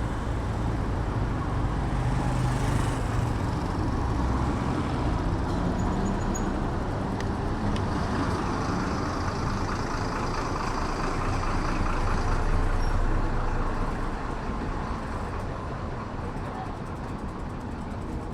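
Road traffic on a busy city street: a steady rumble of vehicles that swells about two-thirds of the way through, then eases.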